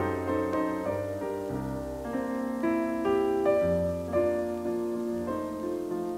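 Piano music from an FM radio broadcast, received on a Sony XDR-F1HD tuner, with notes struck one after another and left ringing.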